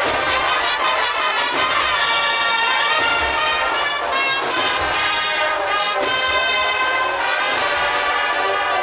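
An agrupación musical, a Spanish Holy Week band of cornets, trumpets and trombones with drums, playing a processional march. Full sustained brass chords run over a steady drum beat.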